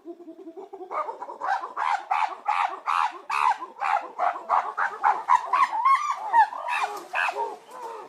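Squirrel monkeys calling: a few soft calls, then from about a second in a rapid run of sharp calls, about four a second, that breaks off near the end.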